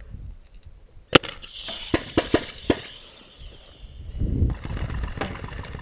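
Paintball fire: one sharp crack about a second in, then a quick string of snaps as paintballs are fired and strike the wooden-board bunker.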